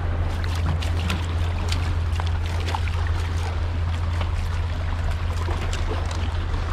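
Sea water washing and trickling over a rock shelf, over a steady low rumble, with many scattered small clicks and drips.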